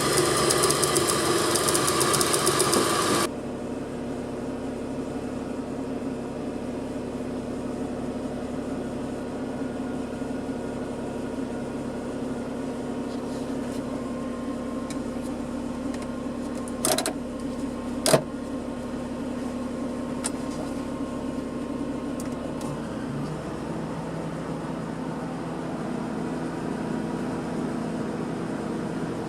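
Suzuki Cappuccino's three-cylinder engine idling steadily. A louder, fuller sound cuts off abruptly about three seconds in. Two sharp clicks come about a second apart past the middle, and the idle note drops slightly about three-quarters of the way through.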